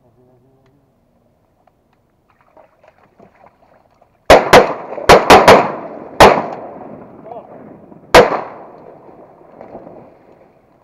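A volley of seven shotgun shots at scaup over decoys: two in quick succession, three more in a rapid string, another a moment later and a last one about two seconds after, each with a trailing echo.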